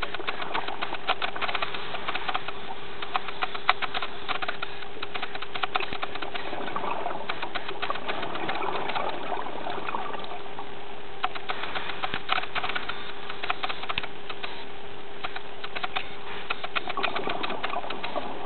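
Underwater reef sound as picked up through a camera housing: a dense, constant crackle of sharp clicks over a steady hum, with a rushing swell around the middle.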